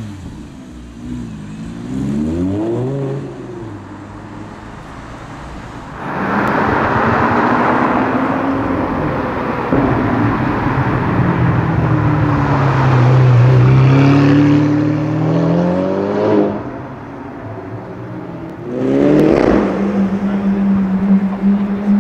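Car engines revving and accelerating in street traffic: a short rev about two seconds in, a louder car pulling away from about six seconds with its note dropping and climbing again, another quick rev near the end, then a steady engine note.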